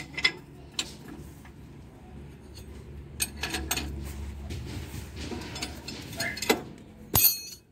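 Steel wrench clinking and knocking on the mounting nut of a truck's spring brake chamber as the nut is worked loose, in scattered metal clicks. A sharp clank with a brief metallic ring near the end is the loudest.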